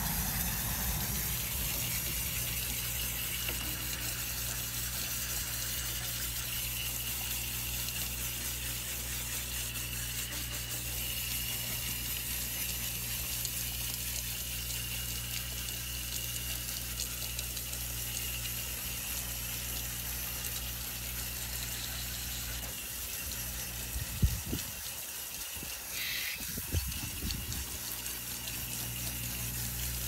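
Garden hose spraying steadily onto an air-conditioner condenser coil, the stream spread by a thumb over the hose end, washing packed dirt out of the fins. The spray eases a little about three-quarters of the way through, and a few sharp knocks follow.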